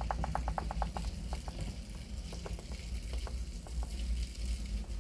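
Keypad clicks on a handheld scan tool: a quick run of about ten clicks in the first second, then a few scattered ones, over a steady low hum.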